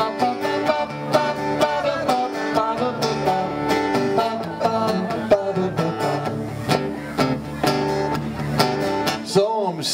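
Steel-string acoustic guitar strummed in a country-style song, played live.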